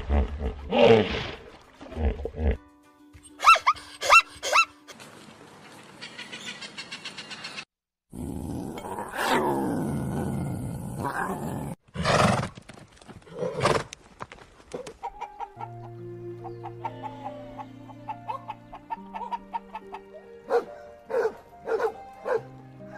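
A series of different animal calls, one after another, with background music of held notes coming in about halfway through.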